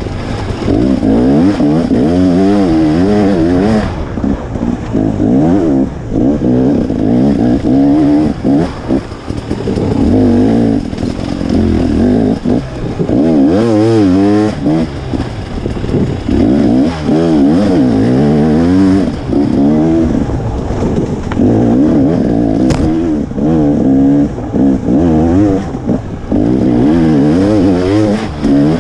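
KTM 300 XC two-stroke dirt bike engine revving up and down without pause as the rider works the throttle along tight woods singletrack. There is one sharp knock about three-quarters of the way through.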